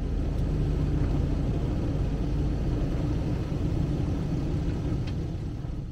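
Lexus LX470's V8 engine running under load as the SUV crawls up a rough, rocky trail, a steady low rumble that fades slightly near the end as it moves away.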